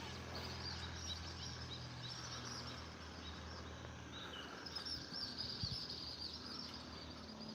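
Faint outdoor ambience with many birds chirping, short high notes repeating throughout over a low steady hum.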